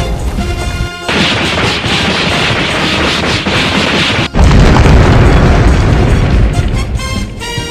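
Explosion-type sound effects laid over background music. About a second in, a loud rushing noise starts and runs for about three seconds, then cuts off suddenly and a heavy low boom follows. The music comes back near the end.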